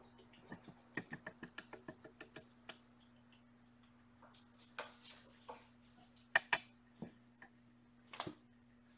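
A kitten playing on a hard laminate floor: a quick run of light ticks and taps about a second in, then a few louder scratchy scuffs and clicks, over a steady low electrical hum.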